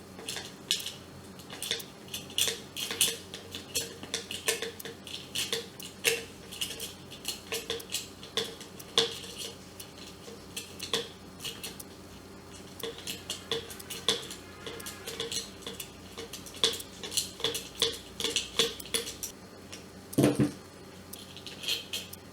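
Pliers working loose the nuts on an electric kettle's handle: many quick, irregular metal clicks and clinks, with a heavier knock near the end.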